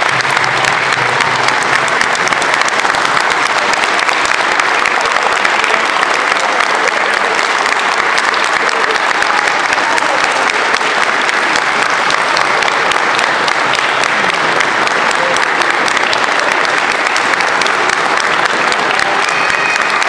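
Long, steady applause from many people clapping their hands.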